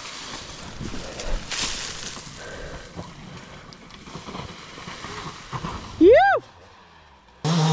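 Faint low noise, then, about six seconds in, a short loud whooping call from a person that rises and falls in pitch. Near the end a steady, pitched drone cuts in suddenly.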